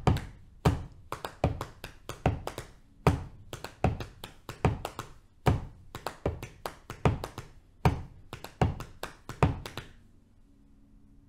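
Hands tapping on the thighs in a 5:4:3 polyrhythm: five, four and three evenly spaced strokes played against each other in each cycle, with a louder stroke about every two and a half seconds where the beats coincide. The tapping stops about ten seconds in.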